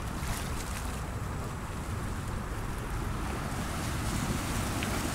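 Wind rumbling on the microphone over a steady wash of river water, slowly growing a little louder.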